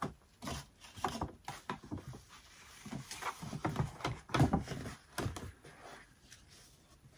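Rustling and knocking of a stiff paper shopping bag and a cardboard gift box as the box is lifted out of the bag: a string of irregular crinkles and soft knocks, loudest about four and a half seconds in.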